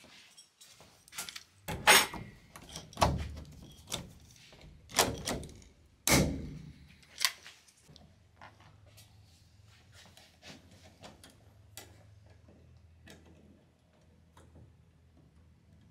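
Metal fittings knocking and clunking as a control rod is fitted to the hinged control-horn bracket on the wing: about six sharp knocks in the first seven seconds, then only faint small ticks and clicks over a low hum.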